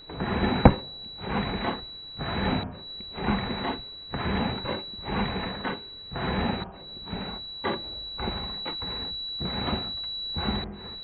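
Static noise of a broken TV or VHS picture, pulsing in swells about once a second under a steady high whine that cuts out briefly three times. There is a sharp click a little under a second in.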